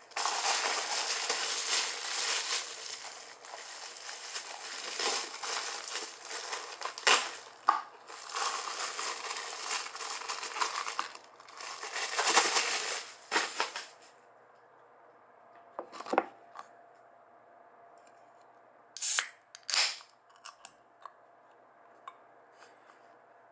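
Plastic packaging crinkling and rustling with sharp crackles, stopping about halfway through, followed by a few separate light clicks and knocks as things are set down on a table.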